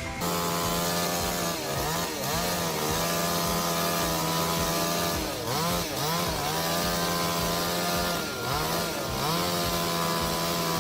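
Chainsaw engine running at high speed, its pitch dipping briefly and climbing back three times.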